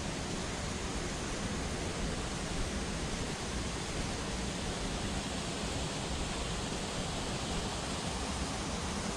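A steady, even rushing noise outdoors, with no clicks or rhythm in it.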